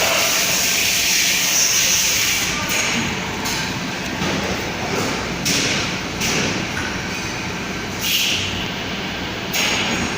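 Fabric welding machine for roller-blind material running, with a hiss that cuts in and out several times over a steady mechanical noise.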